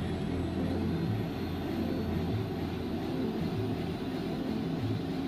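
Helicopter turbine and rotor running steadily, with a faint high whine rising slowly in pitch.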